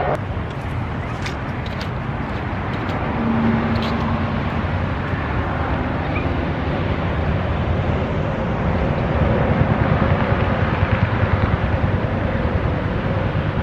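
Steady road traffic noise with a low rumble, a faint passing hum in it, growing somewhat louder in the second half.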